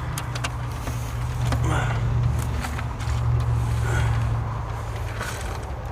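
A steady low engine drone, with scattered sharp clicks and taps of hand tools working on a car battery terminal.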